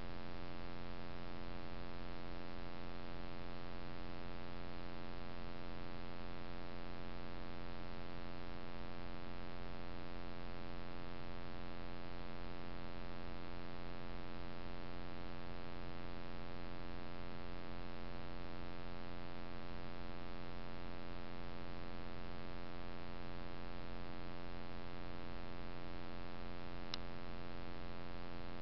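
Steady electrical hum with many even overtones, from the trail camera's own electronics, and one faint click near the end.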